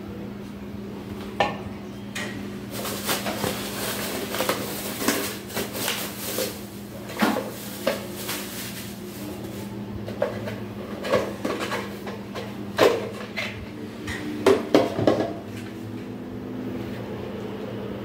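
Hard plastic ceiling-fan parts being handled, knocked together and set down, with rustling: scattered clicks and knocks, busiest a few seconds in, with the loudest knocks near the end. A steady low hum runs underneath.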